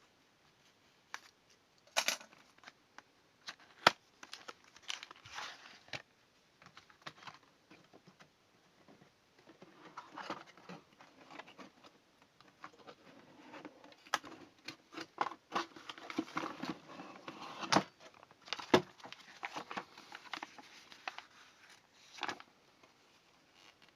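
Hands handling computer hardware and its packaging: crinkling plastic and rustling, with scattered sharp clicks and knocks. The handling is busiest in the second half.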